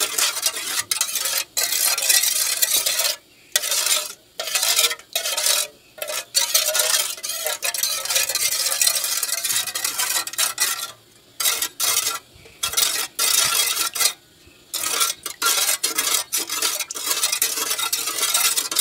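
A metal spoon stirring coconut milk in a stainless steel bowl, scraping the sides and bottom steadily to dissolve sugar and salt, with several short pauses.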